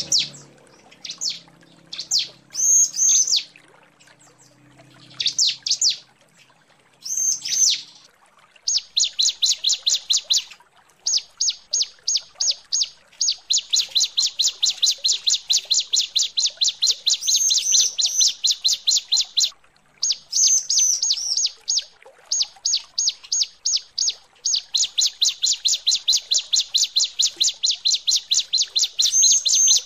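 Female bar-winged prinia (ciblek) calling to draw a male. For the first several seconds it gives scattered sharp, descending chirps. Then come long runs of rapid repeated chirps, about five a second, with a few short breaks.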